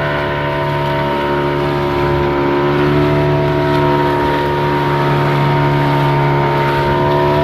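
Boat engine running steadily: an even, droning hum with a steady tone over the noise of the boat under way.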